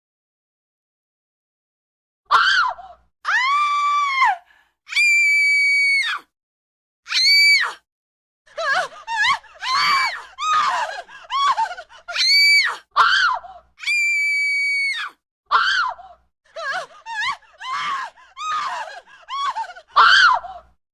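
A baby screaming in a string of shrill cries, starting about two seconds in: some are long and held at a very high, steady pitch, others short and broken, with brief silent gaps between them.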